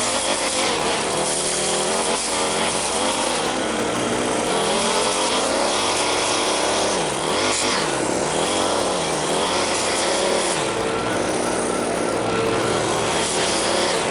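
Gas engine of outdoor lawn equipment running steadily. Its pitch dips and recovers a few times about seven to eight seconds in, as it takes on load.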